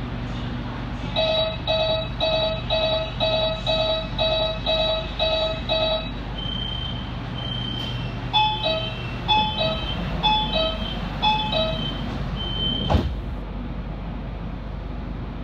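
Shenzhen Metro Line 11 train's door warning tones: a run of short beeps, about three a second for five seconds, then four falling two-note beeps about a second apart. A single sharp thump comes near the end, over the steady low hum of the stopped train.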